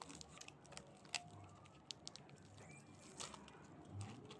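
Plastic wafer wrapper crinkling faintly in the hands as the pack is opened: a few scattered crackles, the sharpest a little over a second in.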